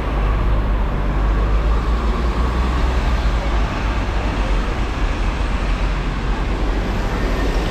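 City street traffic noise: a steady wash of passing vehicles with a strong low rumble.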